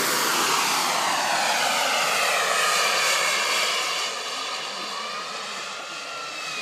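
Boomerang radio-controlled model jet's turbine engine whining at high power as it flies past and climbs away. The pitch falls steadily as it passes, and the sound fades after about four seconds.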